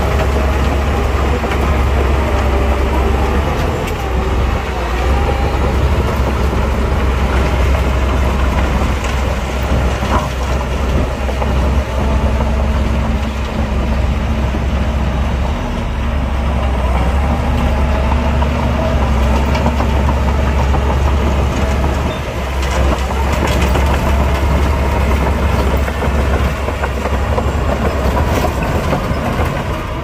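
Diesel engine of heavy earthmoving machinery running steadily, with a deep, continuous low rumble.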